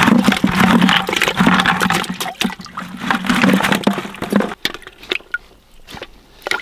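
Water splashing and bubbling in a steel stockpot of cooked clams as a hand reaches in and lifts clams out. Loud for about four and a half seconds, then scattered clicks of clam shells knocking.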